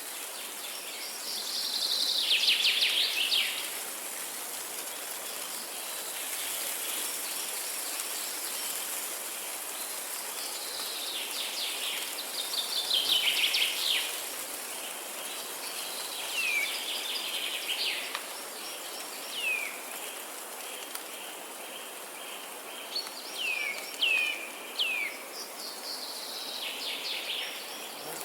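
Songbirds singing over a steady high hiss. Loud fast trills fall in pitch near the start, twice in the middle and near the end, with short downward-sweeping whistles between them, several close together in the second half.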